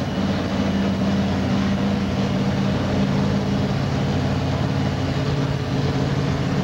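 A heavy truck engine running steadily close by, its hum stepping down a little in pitch about two seconds in.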